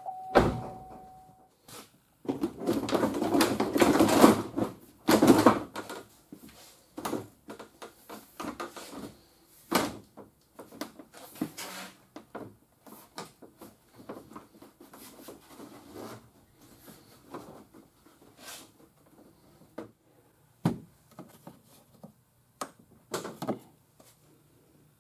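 Plastic bumper cover being handled and pushed into place on a car's front end: a run of knocks, clicks and rustling, loudest in a scraping stretch a few seconds in, then scattered knocks.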